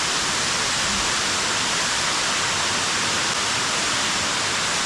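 Steady rush of an underground waterfall, an even, unbroken roar of falling water.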